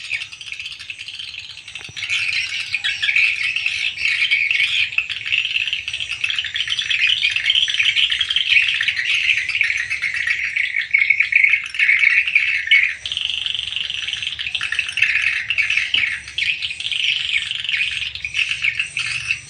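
Dense, continuous twittering of swiftlets around a swiftlet house, many calls overlapping; it grows louder about two seconds in.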